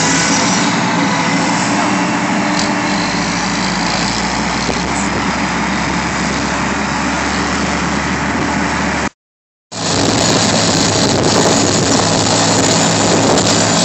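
Heavy diesel engine of a John Deere four-wheel-drive tractor running steadily. The sound cuts out for about half a second a little after nine seconds in, then resumes unchanged.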